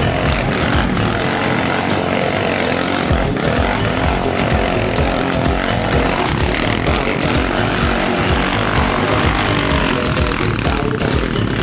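ATV engine running steadily while riding.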